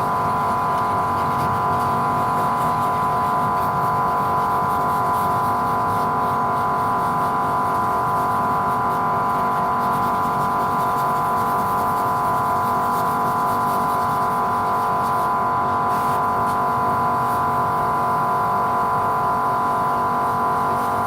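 A machine running steadily, giving a constant whine made of several even tones with a noisy hum beneath, unchanging throughout.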